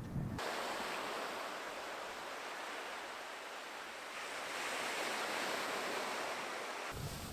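Sea waves washing onto the beach, a steady rush that swells about halfway through; it starts and stops abruptly.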